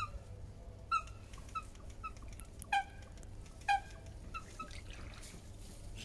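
A bird giving a string of short chirping calls, about eight in all, the two loudest and lowest near the middle, over a steady low hum.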